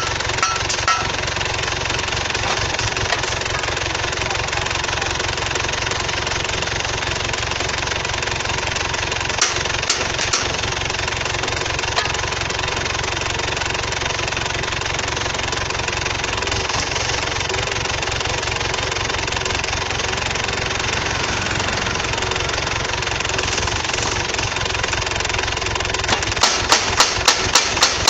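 The engine of a small pile driver runs steadily. Near the end, its hammer starts striking in a fast, even rhythm of about four blows a second.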